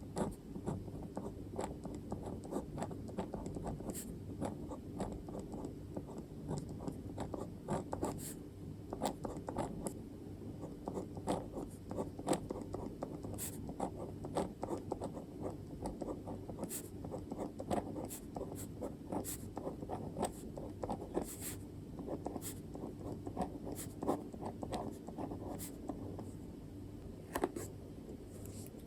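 Handwriting on paper: a steady stream of short scratching strokes, irregular and closely spaced, as the writing implement moves across the page.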